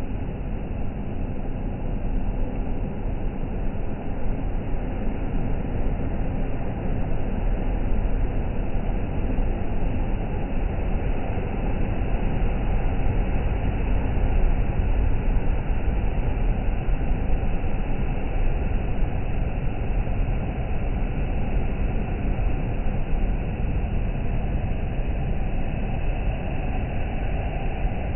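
Black Sea surf: a steady low rush of waves on the shore, swelling and easing slowly in loudness.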